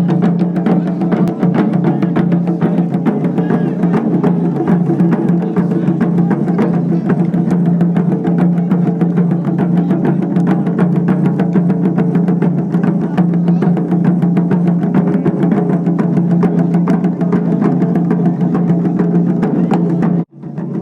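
Music with drums and rapid percussion strikes over a steady low drone. It breaks off briefly near the end, then resumes.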